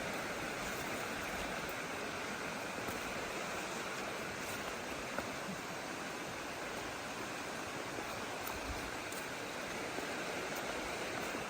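Stream water running steadily, an even rushing hiss with a few faint small ticks.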